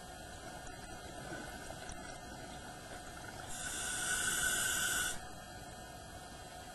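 A diver's scuba regulator hisses during one inhalation of about a second and a half, midway through. Underneath runs a steady underwater hum, heard through the camera's housing.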